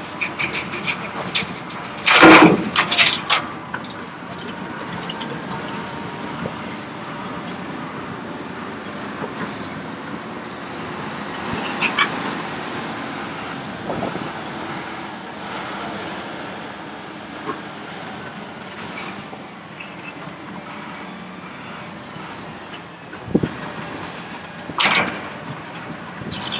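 Diesel engines of a Hitachi ZX870 excavator and a Cat 740B articulated dump truck running steadily, with a heavy crash about two seconds in as a bucketful of earth is dumped into the truck's steel body. Smaller knocks follow later, and another loud crash comes near the end as the bucket empties again.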